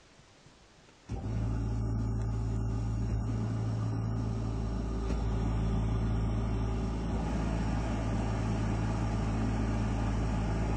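ANEST IWATA oil-free scroll air compressor switching on about a second in and running with a steady low hum.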